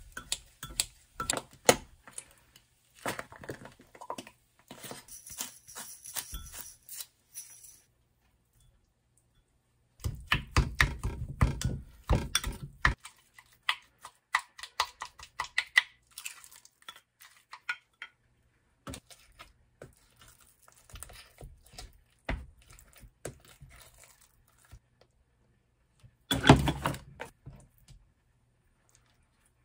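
Kitchen scissors snipping boiled eggs in a glass mug, then a spoon mashing and stirring egg mayonnaise in the glass in quick runs of clicks and taps. A louder rustling thud comes near the end.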